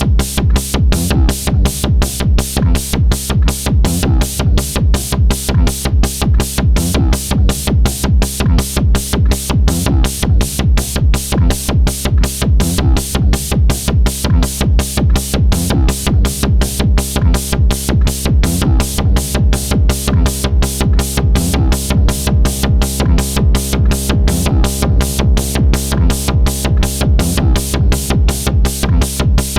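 Electronic beat of a synthesized bass drum and hi-hat repeating at an even, steady tempo over a sustained low bass tone.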